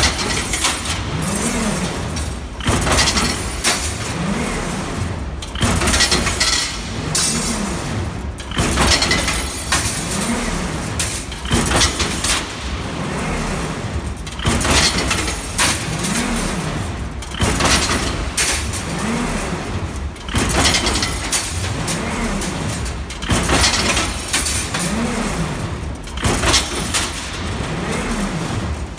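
Progress Maschinen automatic wire-bending machine forming wire rings in a repeating cycle about every one and a half seconds. Each cycle has a motor whine that rises and falls in pitch and sharp metallic clicks and clatter as the finished rings drop into the wire basket.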